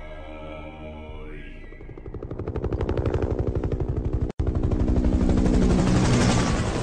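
Bell UH-1 Huey helicopter flying past: the rotor blades beat in a fast, even chop of about ten strokes a second that grows loud from about two seconds in, over fading orchestral music. A brief dropout just past four seconds, then the helicopter goes on loud.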